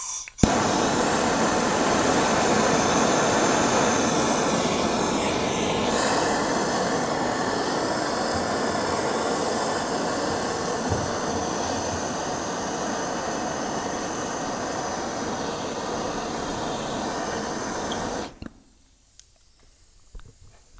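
Handheld gas torch lights with a click and burns with a steady rushing hiss for about eighteen seconds, then is shut off. The flame is heating a soldered end cap on a copper pipe to loosen the solder so the cap can be pulled off.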